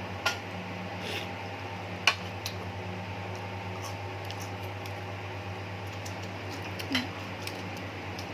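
Seafood being handled and eaten by hand: a few sharp clicks and cracks of shell, three louder than the rest, over a steady low hum.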